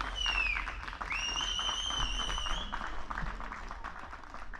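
Crowd applauding, with two whistles from the crowd: a short falling one at the start, then one that rises and holds with a wavering pitch for about a second and a half. The clapping thins out toward the end.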